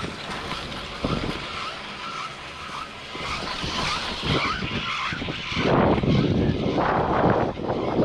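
Loading and riding a Riblet double chairlift: skis scraping on packed snow and a sharp knock about a second in as the chair picks up the rider. From about six seconds in, wind buffets the microphone as the chair climbs away from the bottom terminal.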